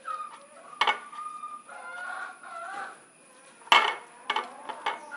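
Chickens clucking, with several sharp clinks of glass dishes.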